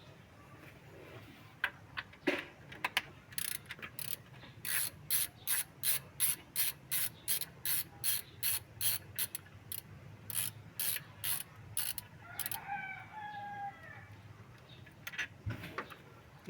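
Ratchet wrench being worked in quick repeated strokes, each a short burst of pawl clicking, about two and a half a second for several seconds before stopping.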